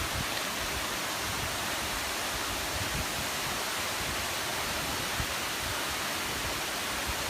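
Waimoku Falls pouring: a steady, even rush of falling water.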